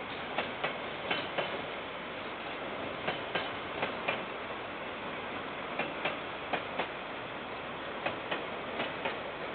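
Train wagons rolling past, their wheels clacking over a rail joint in pairs about a quarter second apart, one pair per bogie, with a gap between bogies. A steady running noise of the train lies under the clacks, heard through a security camera's microphone.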